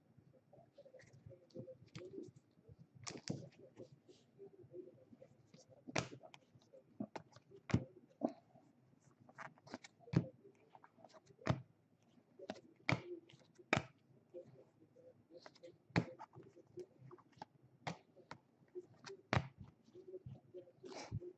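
Trading cards and foil packs being handled: irregular sharp clicks and snaps as cards are flipped and slid through the hands, one every second or so.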